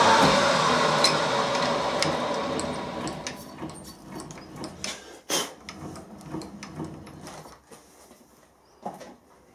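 Vertical milling machine spindle winding down after being switched off, its steady running noise fading away over the first few seconds. Then light clicks and knocks, one louder knock about five seconds in, as the aluminium chips are cleared and the workpiece is handled.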